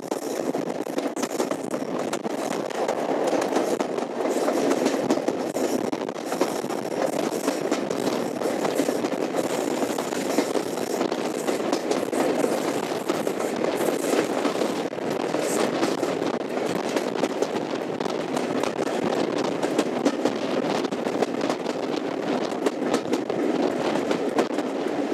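Class 37 diesel locomotive D6700 hauling a train, its English Electric V12 engine running steadily under the rumble and clatter of wheels on the rails, heard from an open carriage window just behind it.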